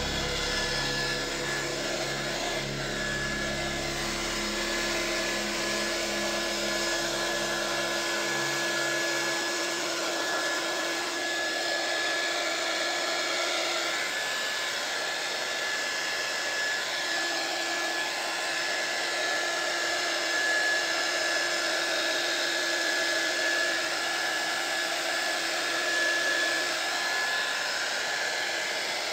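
Small 300 W hot air gun running steadily, its fan blowing with an even rushing hiss and a steady high whine.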